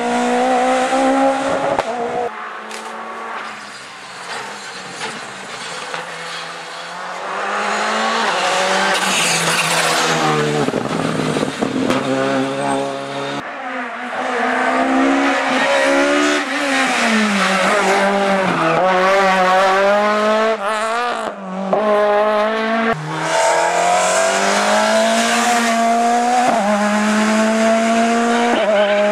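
Rally cars driven hard one after another, their engines revving high then dropping away as they shift gear and lift for bends. The sound cuts abruptly from one car to the next a few times.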